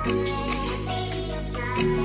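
Background music with held notes, its chord changing about three-quarters of the way through.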